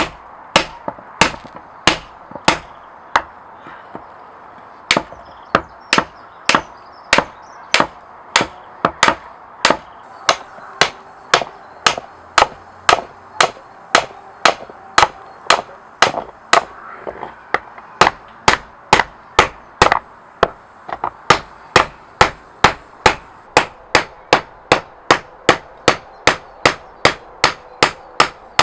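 Hammer blows on steel at an anvil, forging tool steel, at a steady pace of about two strikes a second, each with a short metallic ring. There is a brief pause about four seconds in.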